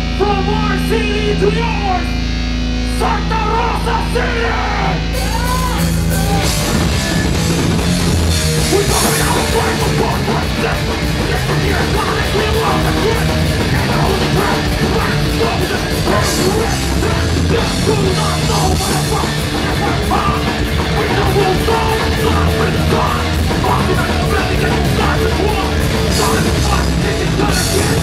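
Hardcore band playing live through a loud PA: distorted guitar and bass over a held low note at first, then the drums and full band come in about five seconds in, with a vocalist shouting.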